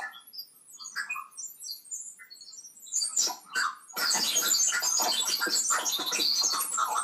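Garbled digital audio from a TV playing Netflix: sparse chirping, squawk-like blips, then from about four seconds in a dense, scratchy crackle. It is the sound of the stream's audio glitching.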